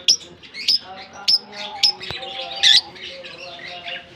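A colony of lovebirds calling: short, sharp, high chirps about twice a second, with one louder, longer squawk a little past the middle.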